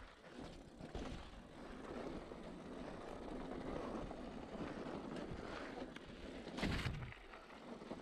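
Mountain bike rolling down a rough dirt trail: steady tyre noise over soil and rock with wind on the microphone, and a louder clattering knock from the bike hitting a bump about three-quarters of the way in.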